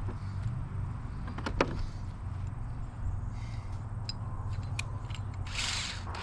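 Small hammer drill's electric motor running steadily, with a few clicks.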